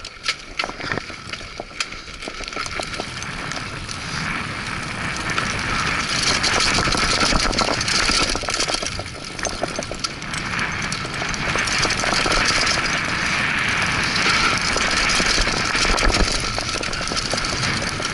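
Mountain bike descending loose dirt and gravel singletrack: wind rushing over the camera's microphone and tyres crunching on the trail, with scattered clicks and rattles from the bike. It grows louder over the first few seconds as speed builds, then stays loud.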